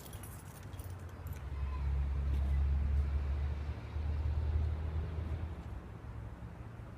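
Car engine idling, a steady low hum that grows louder for a few seconds in the middle, with a few faint clicks near the start.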